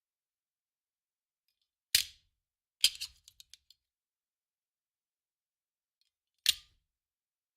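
Handgun magazine thrown down onto a hard surface, landing with three sharp metallic clatters; after the second it bounces and rattles in a few quick small clicks.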